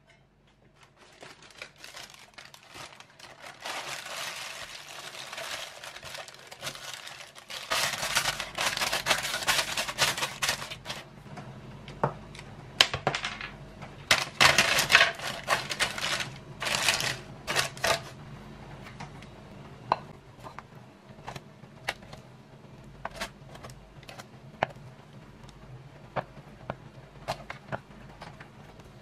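Parchment paper crinkling and rustling as it is pressed into a metal loaf pan, loudest in two bursts. In the later part the crinkling gives way to a scatter of light clicks and taps.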